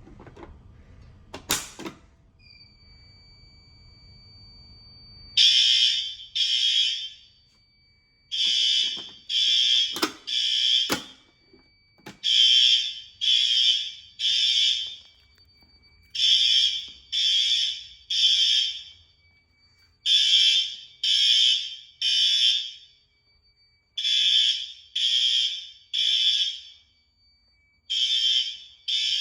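Fire alarm horns on a Fire-Lite MS-5UD system sounding in the temporal-3 evacuation pattern: three loud blasts about a second apart, a pause, then three more, repeating. The horns start about five seconds in. A sharp click comes just before a steady high tone that runs underneath from about two seconds in.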